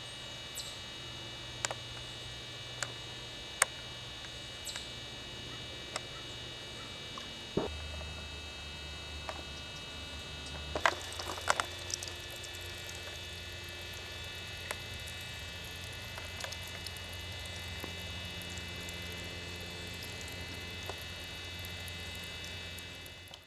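A steady hum with scattered sharp clicks and a short run of knocks about eleven seconds in.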